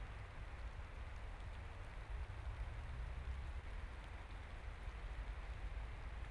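Light rain falling in spring woodland: a steady, even hiss with a low rumble underneath.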